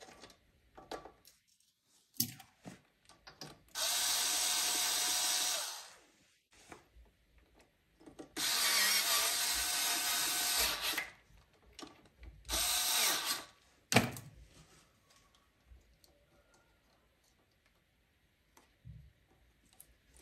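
Cordless drill-driver turning screws at a generator's alternator, running in three short bursts with a steady whine, the middle one longest. A sharp click follows soon after the last run, with light clicks of handling around them.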